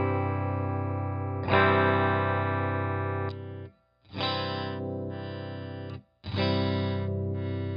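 Fesley ST Strat-style electric guitar on its bridge pickup, playing a series of strummed chords, each left to ring for one to two seconds, with two brief stops where the strings are cut off.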